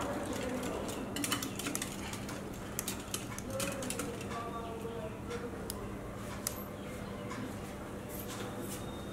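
Wire whisk beating a thick yogurt and spice paste in a ceramic bowl, the wires clicking and scraping against the bowl sides, busiest in the first few seconds and more scattered after.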